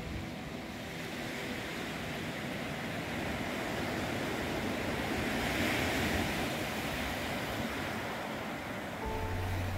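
Small sea waves breaking and washing up a beach of rounded pebbles and cobbles, swelling to their loudest about halfway through and easing off again. A low steady hum comes in near the end.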